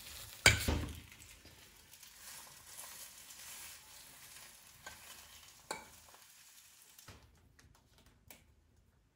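A fork stirring and scraping pasta in a baking dish, with a sharp clatter about half a second in, then a faint hiss and a few light clinks as the pasta is handled.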